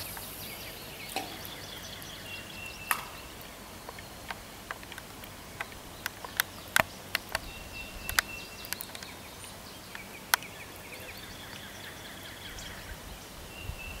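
Steady background hiss with faint, short high-pitched bird calls now and then, and scattered sharp clicks.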